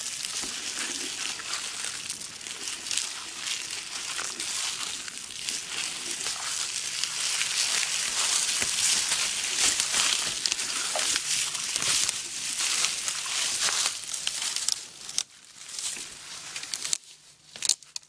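Footsteps crunching and rustling through leaf litter and undergrowth in the woods, a steady crackle of many small snaps that thins out and stops about fifteen seconds in, leaving only a few scattered rustles.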